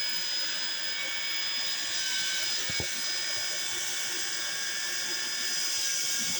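Vacuum cleaner running steadily, its motor giving a constant high whine over a rushing hiss of air, as it does a pickup test. A brief low knock about three seconds in.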